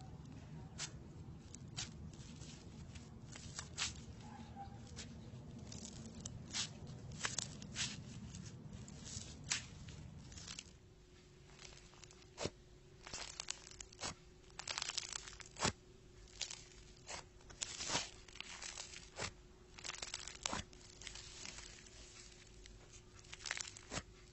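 Crunchy slime being squeezed and pressed, crackling and popping in quick, irregular clicks.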